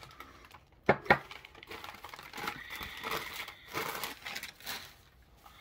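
Two sharp knocks about a second in, then the rustling and crinkling of wrapping as items are handled and unwrapped.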